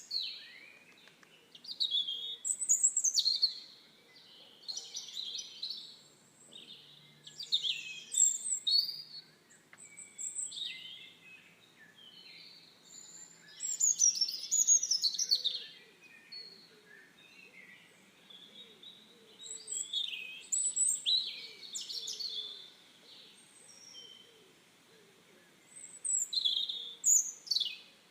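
Birds singing: bursts of quick chirps and whistled sliding notes, in phrases a few seconds apart, with a faint hiss between them.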